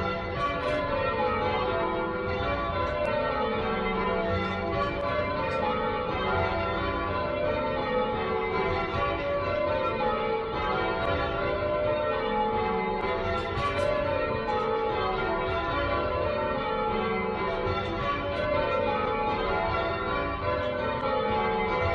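Church tower bells rung full-circle in change ringing: a steady, unbroken run of overlapping bell strokes from the peal.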